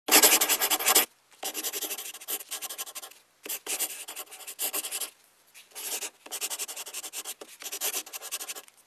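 A pen scratching across paper in quick scribbling strokes, in bursts a second or two long with short pauses between them. The first burst is the loudest.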